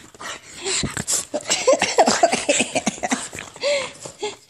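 Boston terrier grumbling and whining in short, pitch-bending bursts with noisy breaths while play-wrestling with a hand.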